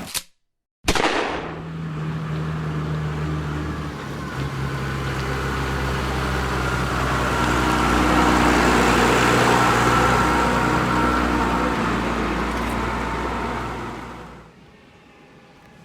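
Case MX135 tractor's diesel engine running steadily, growing somewhat louder toward the middle. It breaks off briefly for under a second near the start and drops away abruptly near the end.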